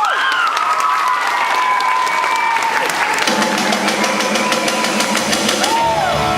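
Audience applauding over music, with a low steady note coming into the music about halfway through.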